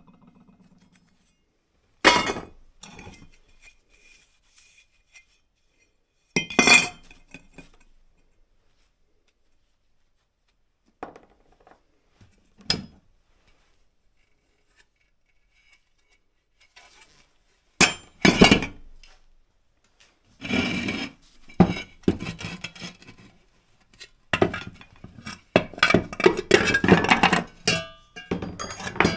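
Metal parts of a dismantled electric water pump clinking and knocking as they are handled and set down on a workbench: a few separate knocks with silent gaps, then a busier run of clinks and rattles in the last third.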